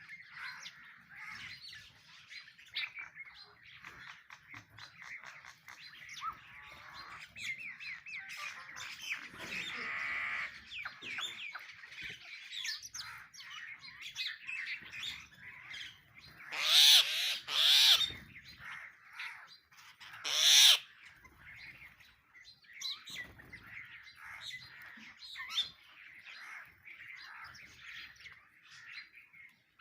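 A flock of house sparrows chirping and chattering continuously at a feeder. Three much louder bird calls break in a little past the middle.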